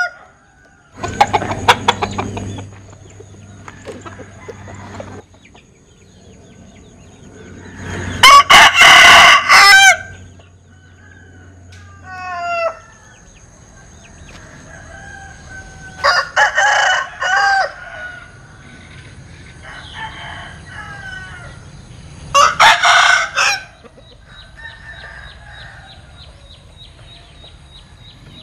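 Rooster crowing again and again with an unusual crow, four crows a few seconds apart, the loudest about eight seconds in. Between them come quieter clucks and a quick run of short rising calls.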